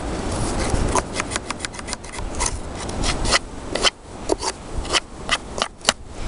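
A thin stick scraping snow out of a wooden beehive's entrance: a run of quick, irregular scrapes and clicks of the stick against the wood and packed snow.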